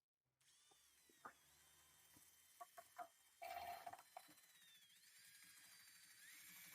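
Near silence, with a few faint clicks and faint high tones that slide in pitch.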